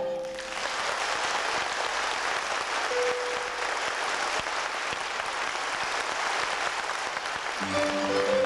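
Audience applauding steadily after a song ends; the band's music starts up again near the end.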